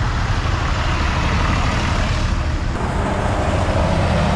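Vintage tractor engines running steadily as the tractors drive past at low speed, one moving off while the next approaches and passes near the end.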